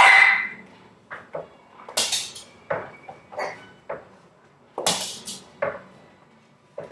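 A small dog scrambling up onto a kitchen chair against a counter: a series of sudden knocks, scrapes and rattles from the chair and the dog's claws. One comes every couple of seconds, the loudest right at the start.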